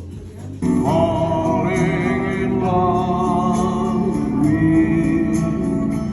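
Background music with singing, coming in suddenly about half a second in.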